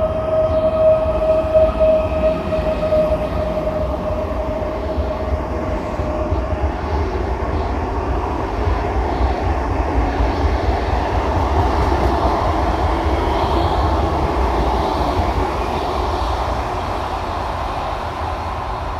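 Electric passenger train running past along an underground station platform and pulling away. A high whine sinks slightly and fades over the first few seconds. Then the rumble of the carriages rolling by swells and slowly eases off, echoing in the enclosed hall.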